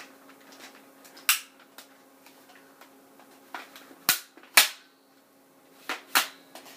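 Sharp plastic clicks and clacks from a toy AK-47 BB gun being handled: five separate clicks at uneven spacing, the loudest two close together about four seconds in.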